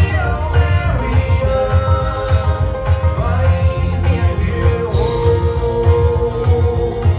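Live bluegrass-style band playing: a singing voice over plucked strings, with a steady beat in the low end.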